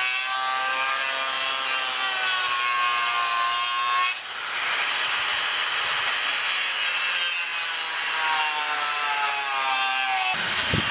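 Corded electric power tool cutting into a wooden post: a high motor whine that wavers in pitch as it bites, giving way about four seconds in to a few seconds of coarse grinding noise before the whine returns.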